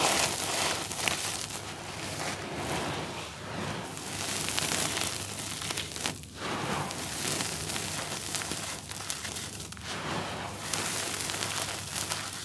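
Handfuls of dry, grainy crumbled charcoal being scooped, crushed between the fingers and poured back onto the floor: a continuous gritty crackling and hissing, with brief lulls about six and ten seconds in.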